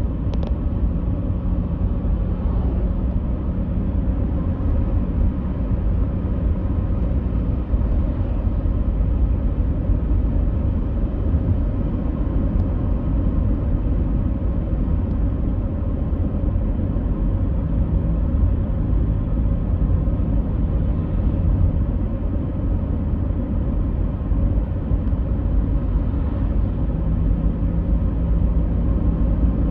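A steady, deep rumbling noise with a faint hum under it, unchanging and with no sudden sounds.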